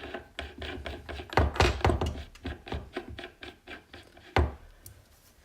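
Quick run of metallic clicks and light knocks from the top nut being screwed back onto a BMW airhead fork tube, with one sharper knock near the end.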